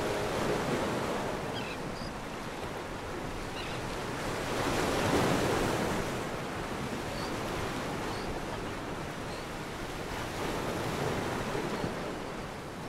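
Sea surf breaking on a sandy beach, a steady rush of waves with wind, swelling loudest about five seconds in.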